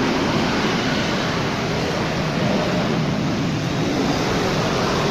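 Steady roadside traffic noise, an even rush of passing vehicles with no single event standing out.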